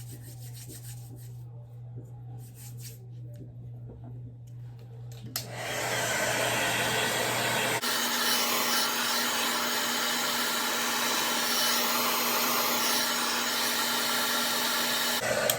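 Handheld hair dryer switched on about five seconds in and blowing steadily, its sound shifting to a higher hum about eight seconds in as the setting changes, then switched off just before the end. Before it, faint handling clicks over a low room hum.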